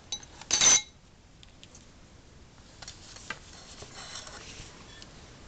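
Handling noise: a short, sharp metallic scrape with a ringing edge about half a second in, then faint clicks and rustling as things are moved about.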